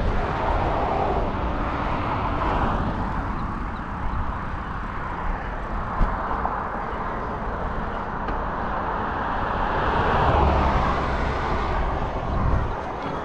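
Steady rushing noise of wind on the microphone of a camera riding on a bicycle, mixed with road traffic noise, swelling louder about ten seconds in.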